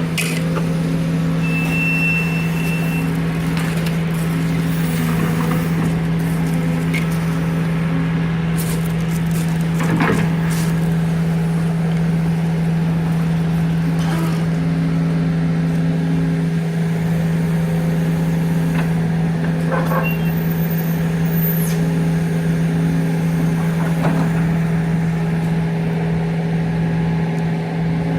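Truck engine running steadily with a constant hum, with a few scattered knocks and clicks over it.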